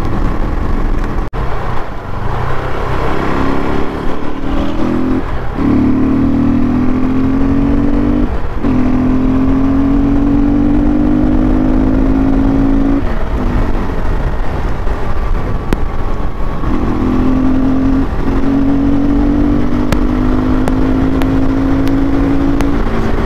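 KTM RC390's single-cylinder engine under way, its note climbing steadily in each gear and breaking off briefly at several gear changes, with a few seconds of easing off about halfway through.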